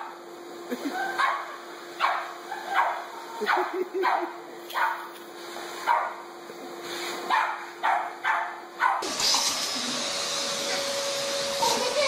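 A Boston terrier barks in quick yaps, about two a second, over the steady hum of a running vacuum cleaner. About nine seconds in the sound switches to a vacuum cleaner running loudly, a steady rushing noise with a whine.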